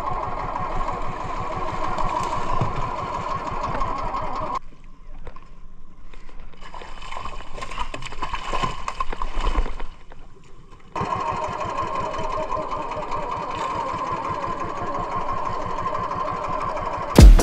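Small outrigger boat engine running at a steady hum. For several seconds in the middle the engine drops out, and a hooked tuna can be heard thrashing and splashing at the surface beside the hull.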